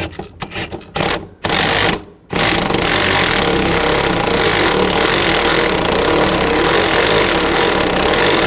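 Cordless impact wrench running the top mount nut down onto the stud of a new rear shock absorber. It starts with a few short trigger pulls, then runs continuously from about two seconds in.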